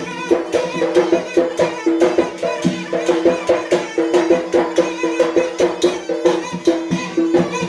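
Yemeni mizmar reed pipe playing a fast folk dance melody over a quick, steady beat of hand drums, one of them a metal bowl drum.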